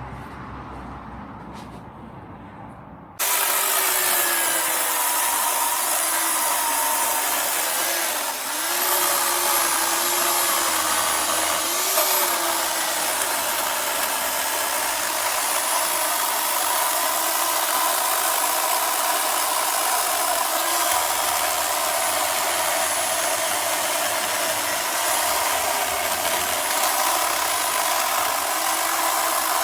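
Corded electric chainsaw (WEN CP1518, 15-amp) switching on about three seconds in and running steadily with a motor whine, its pitch dipping briefly a couple of times.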